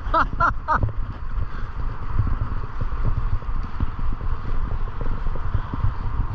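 Wind buffeting the microphone during a bike ride, a loud low rumble that rises and falls in gusts. Near the start, three short pitched calls follow one another quickly.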